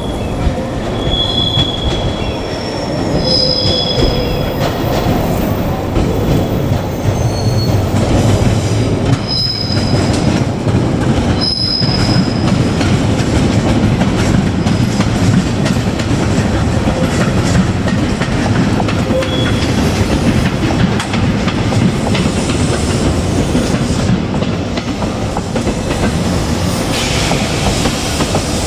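JR Kyushu 817 series electric train rolling slowly on the rails with a steady low rumble and clatter over the track. Several short, high wheel squeals come in the first twelve seconds, and the rumble grows louder from about eight seconds in.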